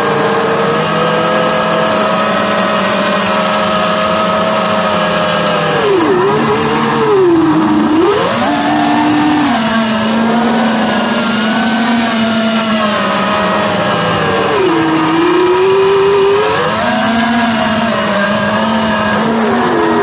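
FPV racing quadcopter's electric motors and propellers whining in flight, the pitch dipping and climbing again several times as the throttle is cut and punched.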